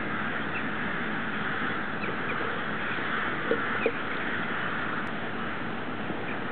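A huge flock of rooks calling in flight, their caws merging into a dense, steady chorus. Two louder single caws stand out about three and a half and four seconds in.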